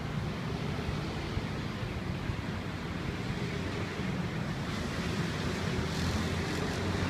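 Steady city road traffic, a continuous low rumble of vehicles on the streets below, with no single vehicle standing out.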